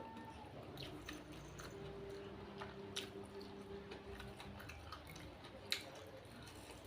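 Chewing and mouth sounds of a person eating rice with chili sambal, with a few sharp clicks, the loudest about halfway through and near the end.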